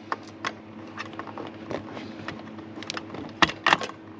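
Multimeter test-probe tips clicking and scraping against the contacts of a 230 V wall socket as they are pushed in and held, with two sharper clicks about three and a half seconds in. A fan hums steadily underneath.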